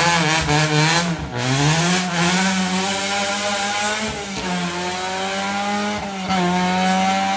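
Opel Astra rally car's engine accelerating hard away through the gears. The note climbs and then drops at each upshift, three times.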